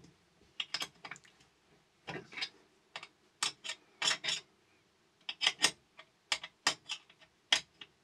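Small steel open-ended spanner clicking against a nut and bolt and the ring magnets that pull at it as the nut is tightened by hand: sharp, irregular metal clicks, often in pairs or small clusters.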